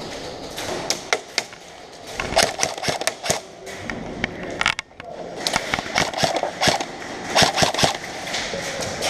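Airsoft gunfire during a game: rapid, irregular clicks and cracks of guns firing and BBs striking, coming in clusters with a short lull about five seconds in.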